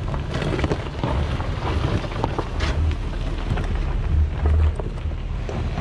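Wind buffeting the camera's microphone: a steady low rumble with many short crackles.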